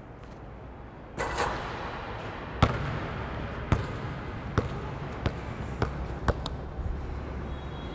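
A basketball bouncing on a hard indoor court floor after a shot: six bounces coming quicker and quicker as the ball settles, with a brief noise about a second in before the first bounce.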